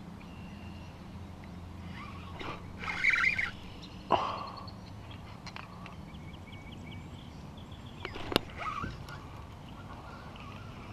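Kayak being paddled across calm water: a splashing paddle stroke about three seconds in and sharp knocks of the paddle against the plastic hull about four and eight seconds in. Birds chirp faintly in the background.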